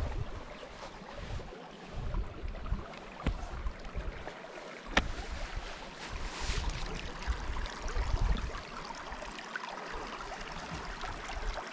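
Shallow mountain stream trickling over rocks, with irregular low rumbles of wind on the microphone and a single sharp click about five seconds in.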